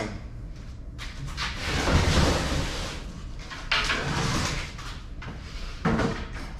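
Scraping and rustling of a large cardboard shipping box being handled and shifted, in three bursts: a long one lasting about two seconds, a shorter one, and a brief scrape near the end.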